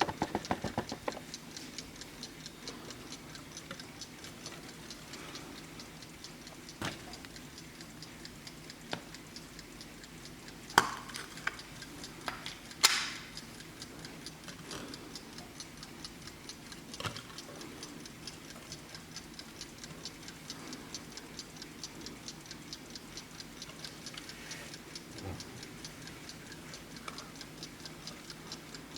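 Vintage German Blessing alarm clock ticking steadily with a fast, even beat, broken by a few louder, separate knocks and clicks near the start and around the middle.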